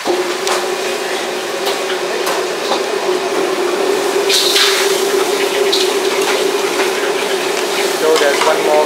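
Tap water running at a restaurant wok stove, a steady rush with a steady hum underneath that starts abruptly just after a stir-fry has been plated. A few clinks and clatters of kitchen utensils come through it.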